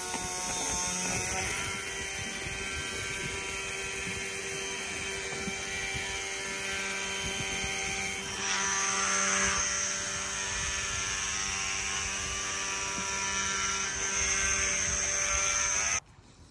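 High-speed cordless rotary tool whining steadily as its fine-grit sanding pad polishes the inside of an aluminium Predator 212 cylinder-head port. The pitch shifts and the sound grows a little louder about halfway through, then cuts off abruptly near the end.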